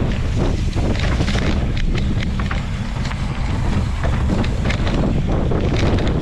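Wind buffeting the microphone of an action camera on a mountain bike riding fast down a dirt trail: a steady loud rumble. Over it, knobby tyres crunch over dirt and rocks, and the bike clatters in quick, irregular rattles over the bumps.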